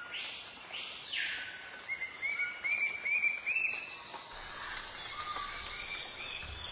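Two short breathy swishes, then a quick run of about six short, rising bird-like chirps, each a little higher than the last, with fainter chirps near the end.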